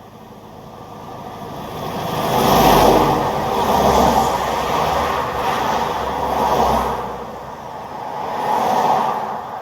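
Road traffic: cars passing one after another, the tyre and engine noise building over the first few seconds and then swelling and fading about four times as each vehicle goes by.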